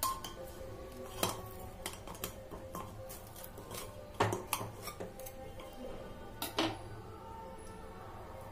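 Kitchen knife knocking and scraping against the inside wall of an aluminium pressure cooker while cutting a cake in it: a string of sharp metal clinks at uneven intervals, the loudest about four seconds in and twice more about six and a half seconds in.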